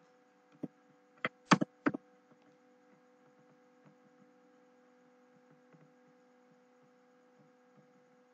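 A few sharp computer keyboard clicks in the first two seconds, then a faint steady electrical hum.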